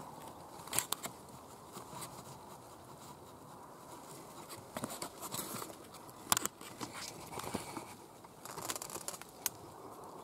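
Leaves and twigs brushing and crackling against a camcorder as it is pushed up through the branches of an elder bush: irregular faint rustles and sharp clicks, the sharpest a little past the middle.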